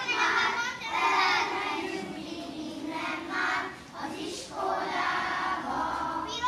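A group of young children singing a song together in unison, in phrases with short pauses between them.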